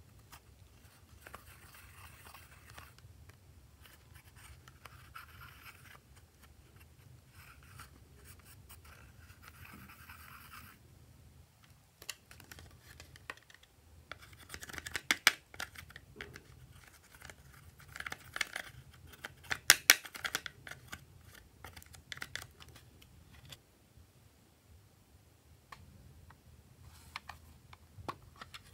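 A plastic applicator scratching pressed eyeshadow out of the pans of a toy makeup palette, in short patches of scraping. Midway it turns to sharper clicks and taps on the plastic palette, loudest about 15 and 20 seconds in, and near the end a few clicks as a plastic makeup case is handled.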